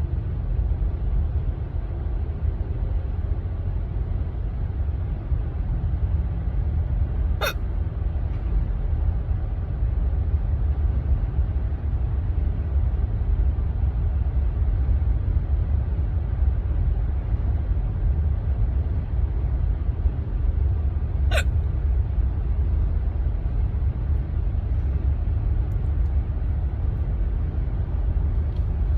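A person hiccuping twice, about fourteen seconds apart: each is a short, sharp hic. Both sound over a steady low rumble.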